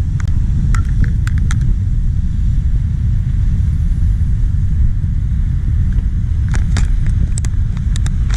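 Steady low rumble of wind buffeting the microphone, with a few sharp clicks near the start and again about six to eight seconds in.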